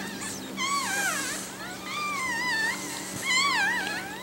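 Newborn pug puppy crying in high, wavering squeals, three times, while it is rubbed dry with a towel just after birth.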